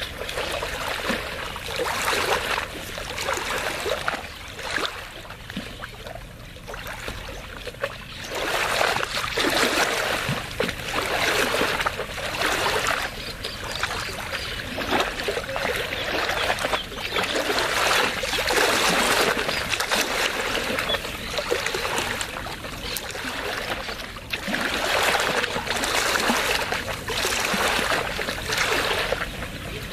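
Small waves lapping and splashing at a lake shore, the water sound swelling and easing in irregular surges every few seconds.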